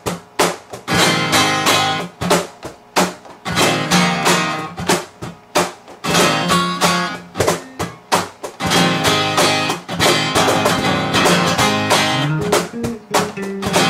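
Acoustic guitar strummed in a quick, steady rhythm, with an electric bass playing along underneath.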